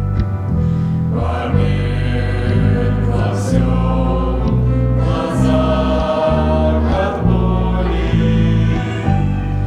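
Music: a Christian choral song, voices singing over instrumental accompaniment whose bass moves to a new note about every second.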